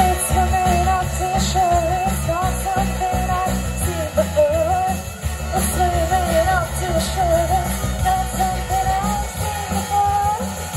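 Live rock band playing through a PA: drum kit and electric guitars, with a lead melody line that bends and wavers above the steady beat.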